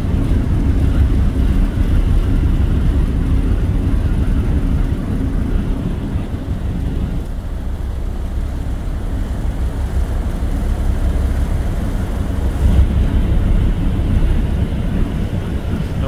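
Steady low rumble and rush aboard a moving ferry from its open deck, the ship's engines and churning wake mixed with wind buffeting the microphone.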